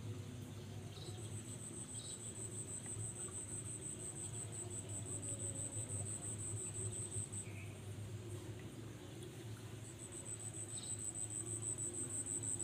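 An insect trilling steadily at a high pitch, breaking off for a couple of seconds past the middle and then starting again, with a low steady hum underneath.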